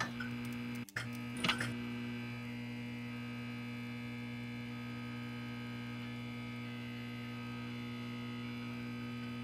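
Electrical buzz of a neon sign lighting up. A few crackles and a brief cutout come in the first two seconds as the tubes flicker on, then it settles into a steady hum.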